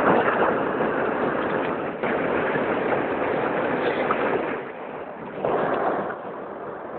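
Roar of strong wind from a passing tornado: a steady rushing noise that swells in gusts near the start, for a couple of seconds from about two seconds in, and again briefly near the end.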